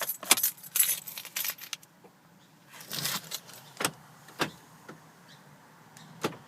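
Car keys jangling on their ring and a few sharp clicks as the ignition key of a 2011 Kia Sportage is worked, with no cranking or engine sound: the car's intermittent no-start fault.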